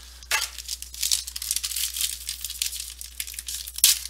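Foil trading-card pack wrapper crinkling and tearing as the pack is opened, an irregular run of crackles with a louder crackle near the end.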